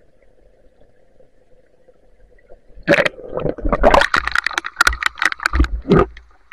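A faint steady hum with the camera underwater, then about three seconds in the camera breaks the surface of a fast shallow river. Loud, irregular splashing and sloshing of water against the microphone follow, with many sharp knocks, in heavy rain.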